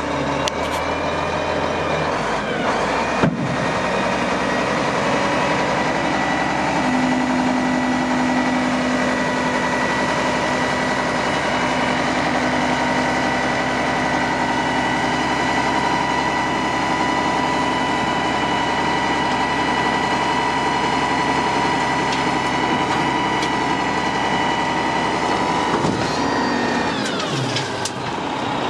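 A 1998 Mack RD688S dump truck's diesel engine runs steadily, driving the hydraulic hoist as the dump body rises, with a steady high whine over the engine. A sharp click comes about three seconds in, and the engine note shifts near the end.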